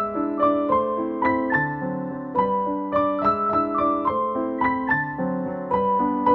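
Background solo piano music: a gentle melody of struck notes, about three a second, over held lower notes.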